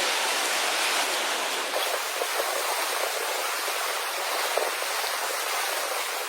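Steady rushing, splashing water noise, like the sea churned by a large pod of dolphins. The deeper part of the sound drops away suddenly a little under two seconds in.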